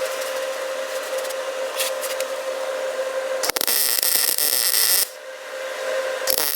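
Welding arc on car-body sheet steel, struck in two bursts: a bright crackling hiss starts with a click about three and a half seconds in, lasts about a second and a half, stops, then starts again near the end. Under it runs a steady hum with a constant tone.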